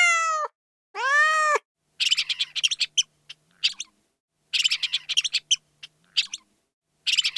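Domestic cat meowing twice, then rapid, high-pitched mouse squeaks in short clusters, the same group repeating about every two and a half seconds.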